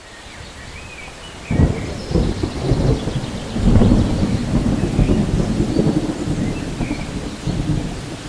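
Steady rain hissing. About a second and a half in, thunder breaks in suddenly and rolls on as a long rumble, loudest around the middle and easing a little toward the end.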